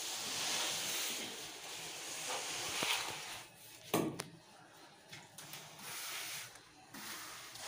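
Steel plastering trowel scraping across fresh cement plaster on a wall, a rough hissing rub, with a single knock about four seconds in.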